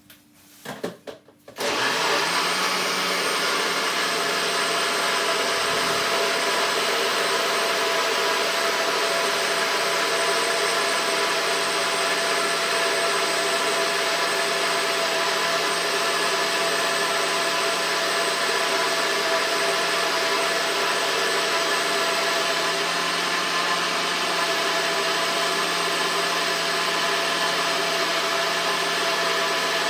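Electric blender switching on about a second and a half in, then running at a steady speed as it blends cucumber, grape and ginger with water into a juice.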